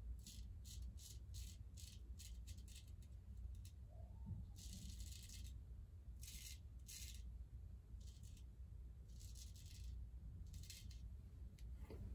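German straight razor, its edge freshly finished on a Dota Creek stone, scraping lather and stubble off the neck in separate strokes. A quick run of short rasping strokes comes first, then fewer, longer strokes.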